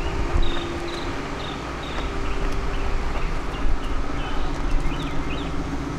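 Outdoor ambience: small birds chirping in short, repeated calls over a steady low hum and rumble.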